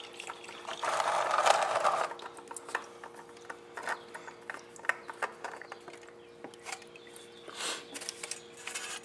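A motorcycle oil filter being unscrewed by hand: scattered light clicks and scrapes of the filter and hand against the bike's parts, with a short rush of noise between about one and two seconds in, over a faint steady hum.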